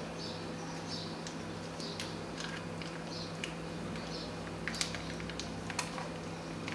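Thin spring roll wrapper rustling and crinkling as hands roll it up around the filling on a plastic cutting board, with a few light clicks a little after halfway, over a steady low hum.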